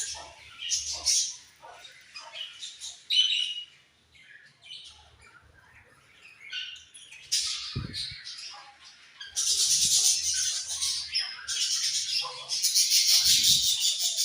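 A group of budgerigars chirping and chattering in quick, overlapping high calls. The chatter thins out for a few seconds in the middle, then comes back dense and louder for the last third.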